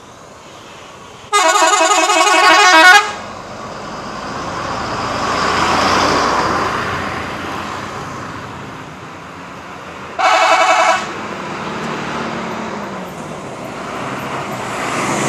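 Telolet horn of a Kanaya bus: a melodic multi-tone horn with a warbling, trilling pattern, sounding for under two seconds, then again briefly about ten seconds in. In between, the noise of the passing vehicle swells and fades.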